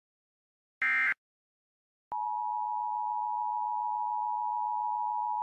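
Electronic tones: a short, buzzy beep about a second in, then a steady single-pitched tone that starts about two seconds in and holds without a break.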